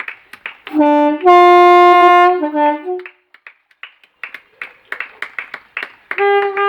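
A pair of Nathan Airchime locomotive air horns sounding: a long blast of about two seconds that steps from a low note up to a loud chord of several notes and back down, then a short blast near the end. Scattered hand claps come in between.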